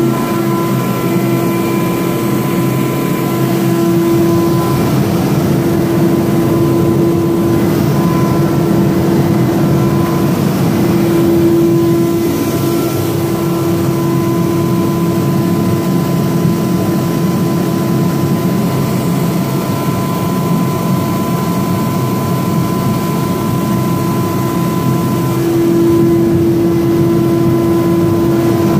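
Forced-air gas ribbon burner firing a forge at about 2 PSI: a loud, steady roar of flame and blown air, with a steady humming tone running through it that swells now and then.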